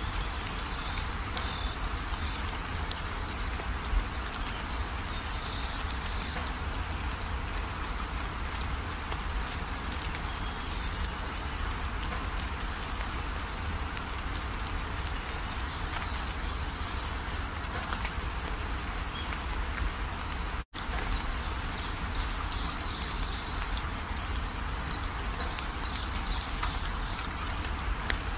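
Steady hiss like rain, with faint high chirping coming and going; the sound cuts out for an instant about two-thirds of the way through.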